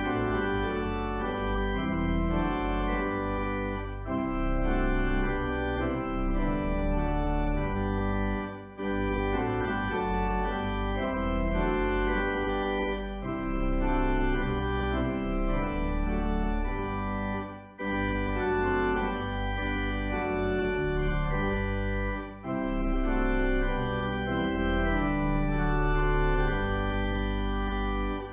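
Organ playing sustained chords over a deep bass, in phrases with a brief break between them, a few times.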